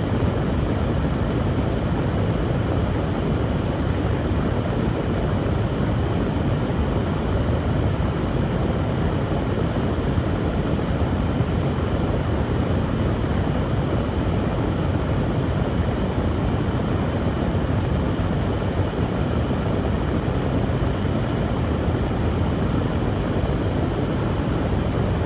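Hair dryer running steadily, a continuous airflow-and-motor rush heaviest in the low range.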